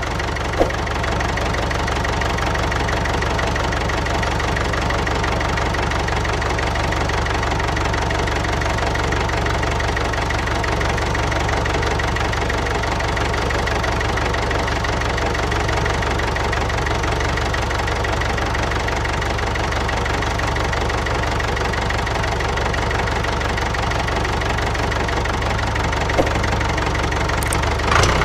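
Tractor engine idling steadily, with a short click about half a second in.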